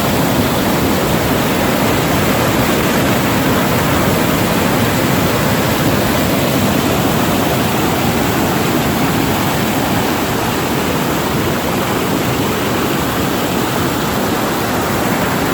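Loud, steady rush of a waterfall pouring over a dam.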